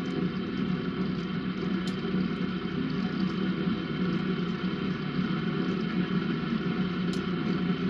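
Bunn commercial coffee brewer brewing, with coffee running from the brew funnel into the glass decanter over a steady hum. Two faint clicks, about two seconds in and near the end.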